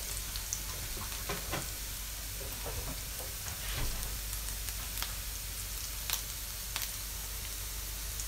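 Chopped onion and garlic sizzling steadily in butter in a nonstick frying pan, with a few faint pops and clicks scattered through.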